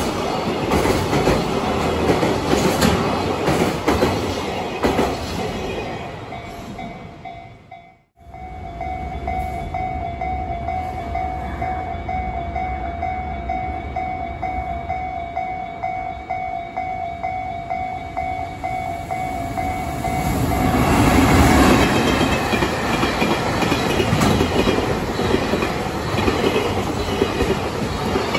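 An electric freight train rumbling and clattering through a level crossing. After a break, the level-crossing warning bells ring steadily while a container freight train hauled by an EF210 electric locomotive approaches, and from about twenty seconds in its wheels and wagons clatter loudly past the crossing.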